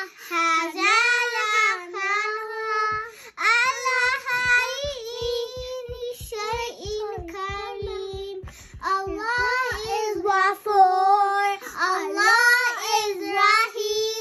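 Two young girls singing a children's Islamic song (nasheed) of thanks to Allah, unaccompanied, their voices gliding between held notes. In the middle there is a run of soft low thumps, about four a second.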